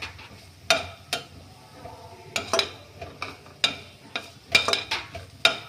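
A metal spatula stirring chopped tomatoes and green chillies frying in oil in a stainless-steel kadhai: irregular scrapes and clinks of the spatula against the pan over a soft sizzle.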